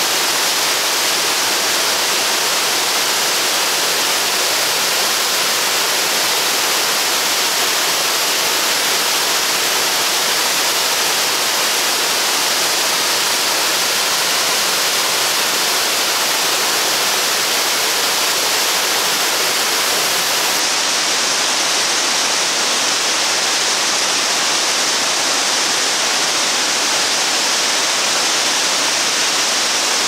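Wide curtain waterfall pouring over a rock ledge into the churning pool below: a loud, steady rush of falling water.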